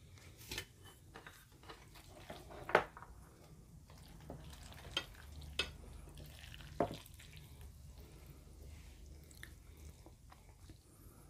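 Chopsticks clicking and scraping against porcelain plates and bowls while noodles are lifted and served, with a few sharper clinks, the loudest about three seconds in.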